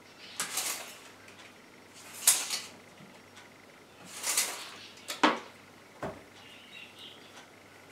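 Steel tape measure being pulled out and run along a table: three rasping bursts of the blade, then a sharp double clack about five seconds in as it is handled or snaps back. Faint pencil scratching follows near the end.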